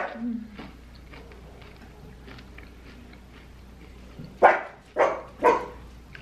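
A dog barks three times in quick succession near the end, about half a second apart. A short sharp sound comes right at the start.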